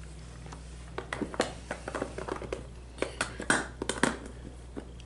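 Makeup items being handled on a table: small plastic clicks and taps of compacts, cases and brushes being picked up and set down, a dozen or so at uneven intervals.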